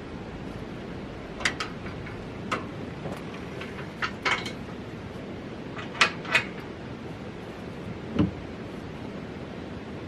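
About eight scattered sharp clicks and clunks from the rear engine door of a Caterpillar 259D tracked skid steer as it is unlatched and swung open and the engine bay is handled, over a steady background hiss.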